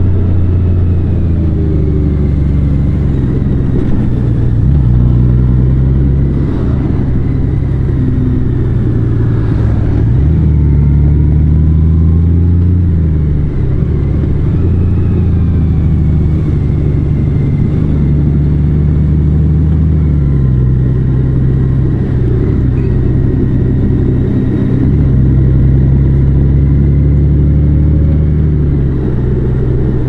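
Large motorcycle engine running under way, its low note stepping up and down several times as the throttle opens and closes.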